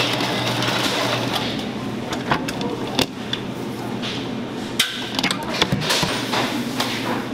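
Large commercial planetary stand mixer running steadily with a low motor hum, its flat beater churning thick white dough in a steel bowl. Several sharp knocks and clacks come through it, the loudest about three seconds in and again near five seconds.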